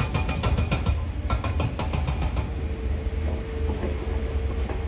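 Camper van running, a steady low rumble with rapid rattling over the first couple of seconds and a steady hum coming in about halfway through.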